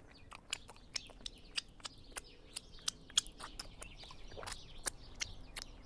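Small birds chirping and twittering in the background, over a run of short, sharp clicks of lips smacking and fingers being licked while eating chicken wings.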